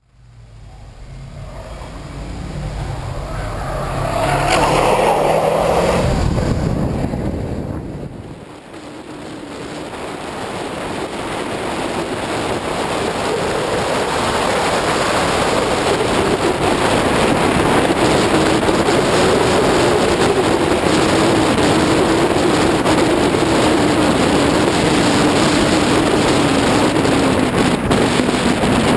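A separate opening sound swells and fades over the first eight seconds. Then a camera mounted on a Subaru Forester 2.5XT picks up heavy wind rush and the car's turbocharged flat-four engine running on a circuit, its faint engine note sinking slowly in pitch.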